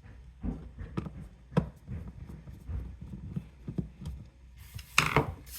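Hands working the old thermistor out of a dishwasher: small irregular knocks, taps and clicks of plastic and metal, then a louder rubbing, rustling handling noise about five seconds in.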